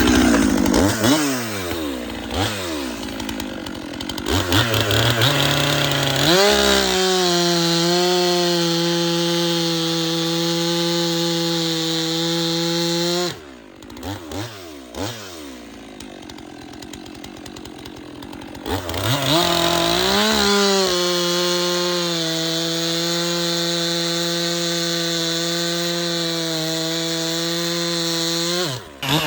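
Stihl MS 400 C-M two-stroke chainsaw with a 20-inch bar cutting white ash logs. It is blipped up and down a few times, then held at a steady high speed through the cut. It drops back about 13 seconds in and revs up again at about 19 seconds to cut on.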